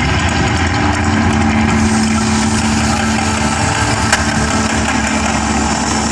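Steady loud rumbling roar of the Mirage volcano eruption show, with a low hum held for a couple of seconds early on and a single sharp crack about four seconds in.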